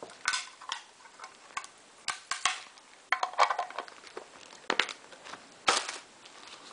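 Stiff clear plastic packaging crackling and snapping as the shell around a mouse is pried apart and the mouse is lifted out: a run of irregular crinkles and clicks, the sharpest snap near the end.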